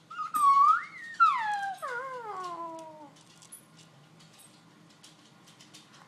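A pet's long vocal call that rises and then slides down in pitch, wavering as it fades over about three seconds.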